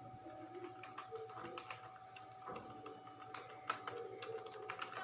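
Typing on a computer keyboard: irregular, scattered key clicks over a faint steady tone.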